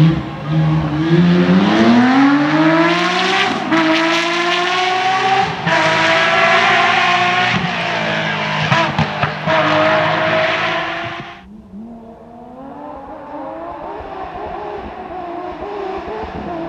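Porsche rally car's engine accelerating hard, its revs climbing and breaking at a few upshifts. About eleven seconds in the sound drops off sharply and the engine carries on more faintly.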